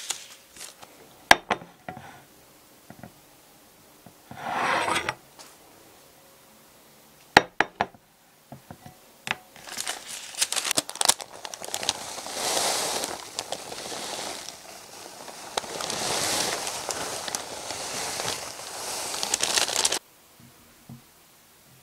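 Baking paper crinkling and rustling as it is lifted and tipped to pour chopped white chocolate into a glass bowl of hot cream, after a few sharp knocks. The rustling stops suddenly near the end.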